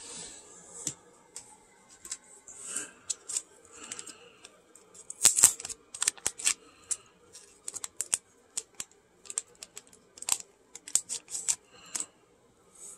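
A trading card in a rigid plastic top loader being handled and slid out: an irregular string of sharp plastic clicks and taps with light crinkling of plastic.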